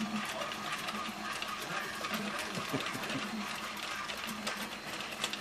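The battery-powered motor and gears of a 1968 Mattel Swingy doll running steadily as the doll dances: a continuous mechanical whirr with many small clicks.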